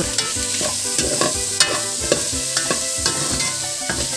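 Chopped goat offal frying in oil in a metal pot, sizzling steadily, while a metal spatula stirs it with repeated scrapes and clinks against the pot. These are the fattier pieces, being fried to render out their fat.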